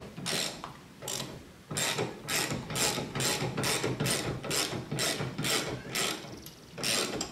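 Hand socket ratchet being worked on a bolt in quick back-and-forth strokes, its pawl clicking on each return stroke, about three strokes a second.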